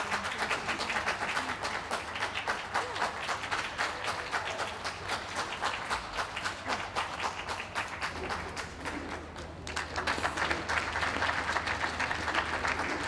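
Audience applauding, a dense spread of many hands clapping that thins briefly about two-thirds of the way through, then picks up again.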